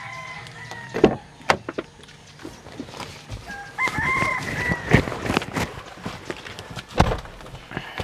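A rooster crowing twice, the second crow, about four seconds in, longer and louder than the first. Around it, the clicks and knocks of an SUV door being opened and shut, with a solid thump as the door closes about seven seconds in.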